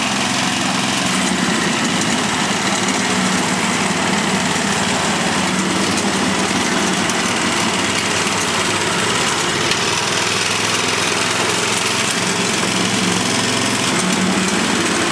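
Small gasoline engine of a powered reel lawn mower running steadily as the mower is pushed across the grass.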